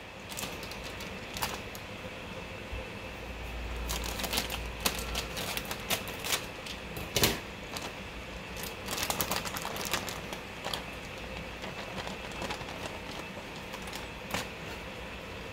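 Plastic bag of mixed vegetables crinkling as it is handled and opened, with a loud knock about seven seconds in. Then diced carrots, corn, peas and green beans rattle into a glazed ceramic bowl as a quick scatter of small clicks.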